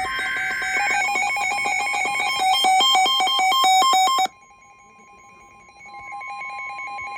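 Emergency Alert System broadcast tones: the end of a SAME header data burst and a fast run of electronic beeps for about four seconds, which cut off abruptly, followed by a quieter, steady two-tone attention signal.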